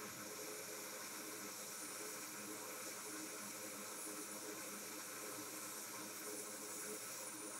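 A steady hiss with a faint hum underneath, unchanging throughout.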